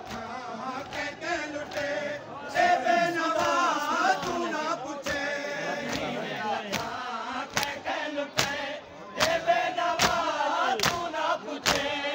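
A crowd of men chanting a noha, a Shia lament, in chorus, with rhythmic matam: palms slapping chests about twice a second, the slaps sharper in the second half.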